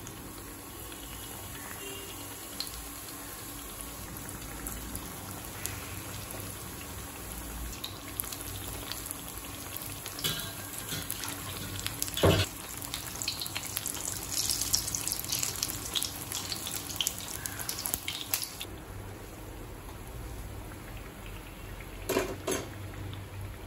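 Batter-coated raw banana slices (vazhakkai bajji) deep-frying in hot oil in an iron kadai: a steady sizzle with crackling bubbles, busier from about eight to eighteen seconds in. Two short sharp knocks come through, one about halfway and one near the end.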